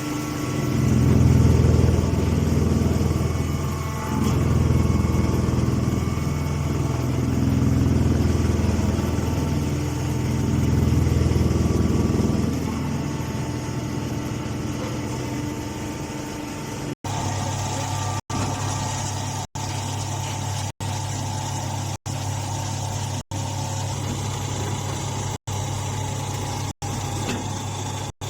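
Hydraulic horizontal straw baler running: a steady low machine hum that swells in loudness every three to four seconds for the first twelve seconds or so, then settles to an even hum. In the later part the sound briefly cuts out about once a second.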